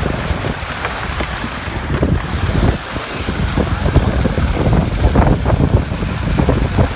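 Water splashing as small fish thrash in a hauled-in net and a long-handled dip net is plunged in and lifted out full of fish, in short irregular splashes. Wind buffets the microphone throughout.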